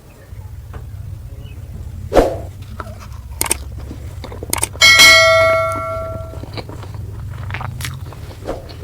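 A metal dish or utensil struck once, ringing with a clear bell-like tone that dies away over about a second and a half, a few seconds after a duller knock. Small clicks of handling the food and dishes come and go, over a steady low hum.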